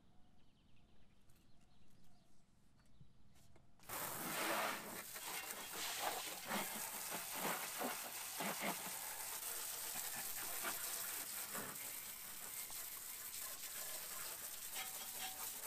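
Hiss of water spraying, with uneven spattering, starting abruptly about four seconds in after a few seconds of faint sounds.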